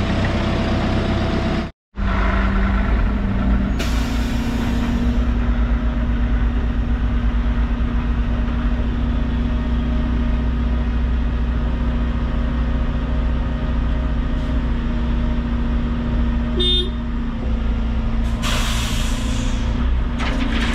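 Heavy diesel engine running steadily, with a short hiss about four seconds in. Near the end comes a louder hiss that dies away: a dump truck's air brakes being released.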